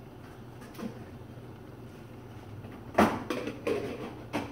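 Kitchen cupboard being rummaged through: a sharp knock about three seconds in, then a second of clattering items and another knock near the end, over a steady low hum.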